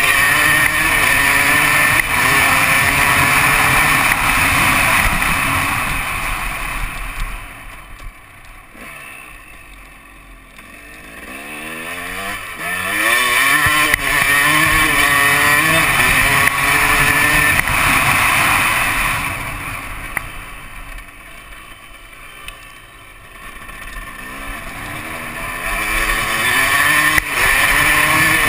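KTM 250 SX two-stroke dirt bike engine under way, its pitch rising and falling as the throttle is opened and rolled off. It drops to a quieter low note twice, about eight seconds in and again about twenty seconds in, then climbs in pitch back to full throttle.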